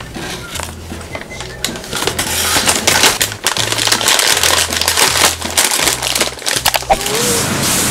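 Brown paper takeout bag crinkling and rustling as hands work at its folded top, louder from about two seconds in. Background music with a steady bass line runs underneath.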